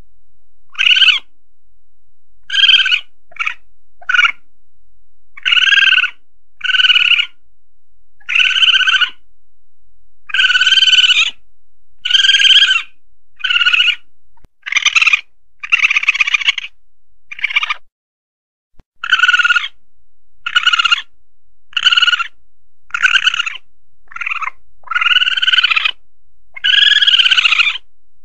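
Asian palm civet (musang pandan) calls, a recording played as a night-hunting lure: short cries of varying length repeating about once a second, each with a steady or slightly arched pitch, with a brief pause about two-thirds of the way through.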